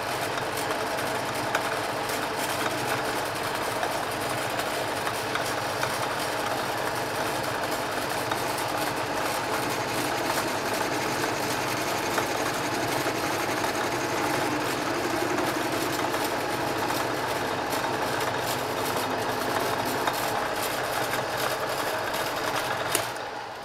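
Old geared metal lathe running steadily under power, with a constant mechanical hum and several steady tones, while its tool faces off the end of a metal bar held in the chuck. The sound falls away near the end as the lathe is switched off and runs down.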